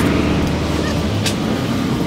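Steady road traffic noise with a low drone, and a brief crinkle of stiff new tent fabric being unfolded a little over a second in.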